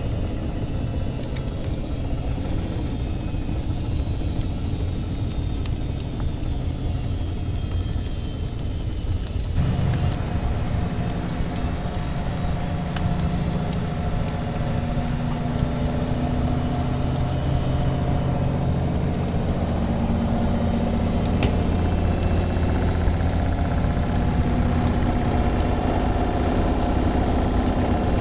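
Washing machine running with a steady low motor hum; about nine and a half seconds in the sound shifts abruptly and the low tones grow stronger. A few faint crackles of a wood fire sound over it.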